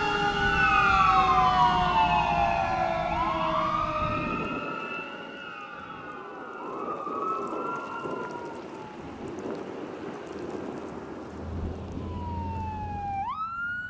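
Fire engine sirens wailing, several siren tones rising and falling over each other, with the truck's engine rumbling underneath. They are loud at first, then fainter and more distant after about four seconds. Near the end another siren starts up with a sharp rising wail.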